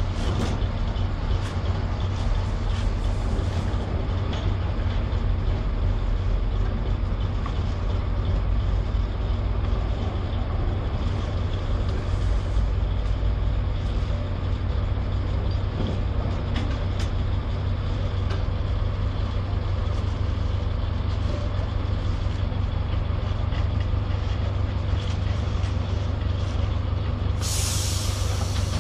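An engine running steadily with a low, even drone. Near the end comes a short, loud hiss.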